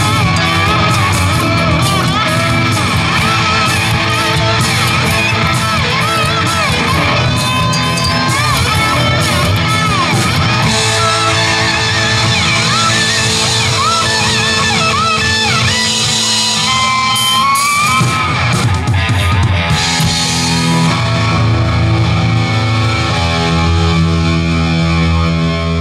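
Live rock band playing loudly: electric guitars, bass guitar and drums, with a wavering, bending lead line on top. In the last few seconds it settles into long held chords.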